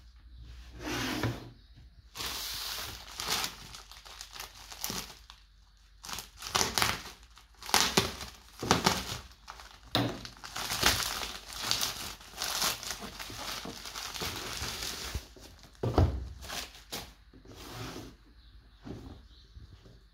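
Plastic courier mailer bag crinkling and rustling in irregular bursts as it is handled and torn open by hand. There is one sharp knock about three-quarters of the way through.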